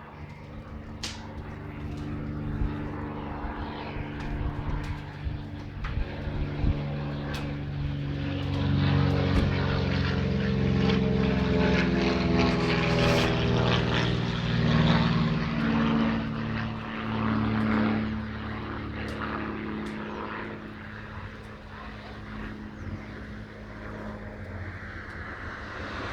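Propeller airplane flying over, its engine drone growing louder, peaking about halfway through, then fading as the pitch drops on the way past.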